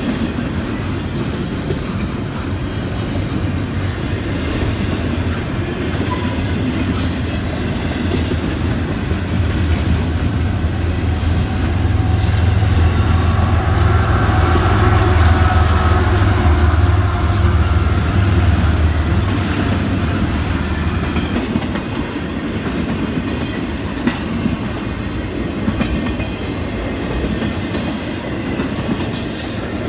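Intermodal freight train rolling past: steady rumble and clatter of wagon wheels over the rails. A mid-train CSX diesel locomotive passes partway through, its deep engine rumble swelling from about ten seconds in and dying away after about twenty.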